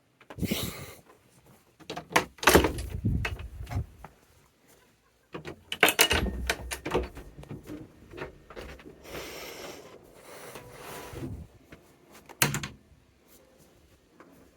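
Irregular knocks, clunks and clicks of something being handled, with heavier thuds a couple of seconds in and again near the middle, some rustling, and one sharp click near the end.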